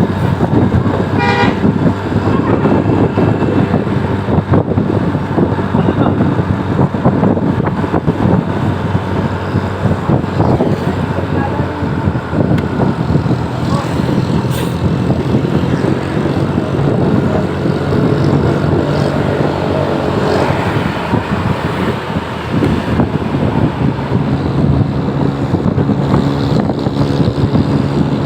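Bus engine and traffic noise with toots of a musical multi-tone 'telolet' air horn, including a brief high toot about a second in and steady horn-like notes near the end.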